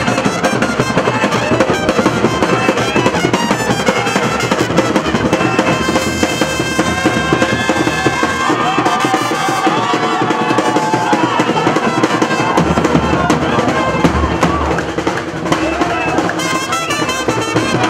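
Small brass band playing live: trumpets carry a melody over a steady beat on a large bass drum and other drums, continuous and loud.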